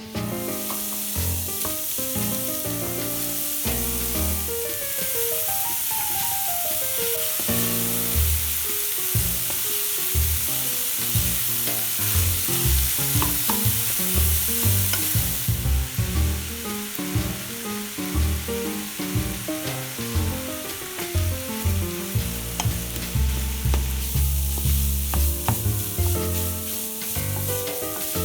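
Food sizzling in a hot frying pan while being stirred.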